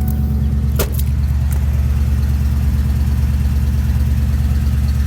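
1996 Ford F-250's gasoline engine idling steadily through freshly installed headers and a homemade exhaust with mufflers, with one sharp click a little under a second in.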